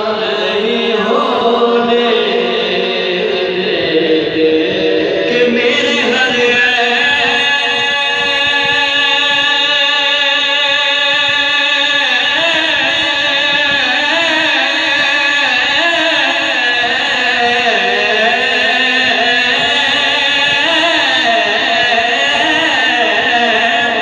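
A man singing an Urdu devotional kalam (naat) solo, holding one long note for several seconds and then moving through ornamented, wavering phrases.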